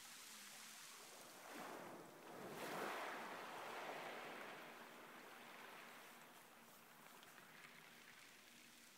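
Faint small waves lapping and washing over a shingle beach of pebbles. A wash swells about two to three seconds in, then slowly fades.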